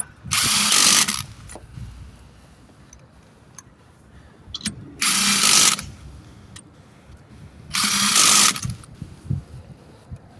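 Cordless impact wrench running lug nuts onto a truck wheel in three short bursts of about a second each, spaced a few seconds apart.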